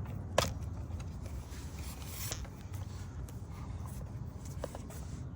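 Camera handling noise: rubbing and scraping against the microphone while the camera is being set up and repositioned, with one sharp knock about half a second in and a few lighter clicks later, over a steady low rumble.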